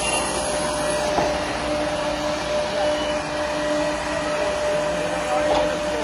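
Road-rail lorry running along the railway track close by: a steady engine drone with a low hum over the rolling noise of its rail wheels.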